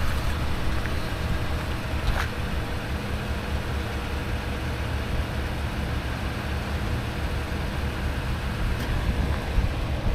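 Toyota Tundra's 5.7-litre i-Force V8 idling steadily, with one short click about two seconds in.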